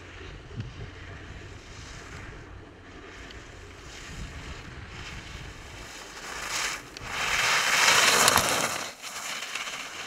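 Wind and water noise over a low steady hum, the rush swelling loudest about seven to nine seconds in.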